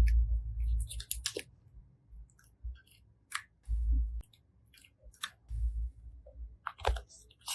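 Slime being squeezed and pressed by hand: scattered short sticky clicks and crackles, with a few low thuds, the loudest in the first second.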